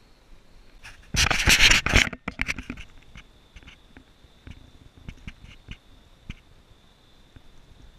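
Camera handling noise: about a second in, a loud scraping rustle lasting about a second as the camera is set down in dry grass and leaves, followed by scattered light taps and rustles.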